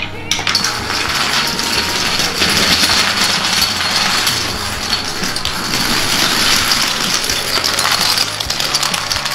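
Many dominoes toppling in a chain reaction: a dense, continuous clatter of small hard pieces knocking over one another, starting suddenly just after the start.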